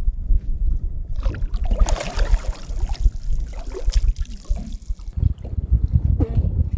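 Water splashing and trickling, from about a second in until about five seconds, over a steady rumble of wind on the microphone.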